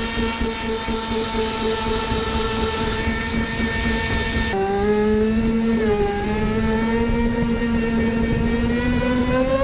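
The 1500kv brushless electric motor of a 4S LiPo-powered 1/6 scale RC jet ski, whining steadily at speed over rushing water. The whine drops abruptly in pitch about halfway through, dips briefly a second later, then climbs again near the end.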